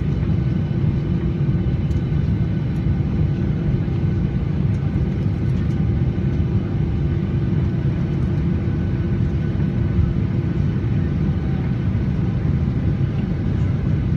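Steady low rumble of a jet airliner heard from inside the cabin after landing: engine and airframe noise with a faint steady hum above it.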